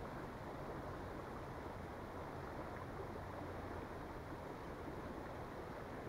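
Flowing river water, a steady low rush.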